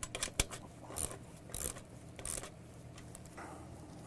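Sharp metallic clicks and short scraping rasps of hand tools and hardware as an LED streetlight fixture is tightened down on its pole arm. Two clicks come first, then three quick rasps about two-thirds of a second apart.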